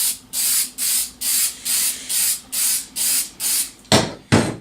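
Aerosol can of clear lacquer spraying in a string of short hissing bursts, about two a second, followed by two sharp knocks near the end.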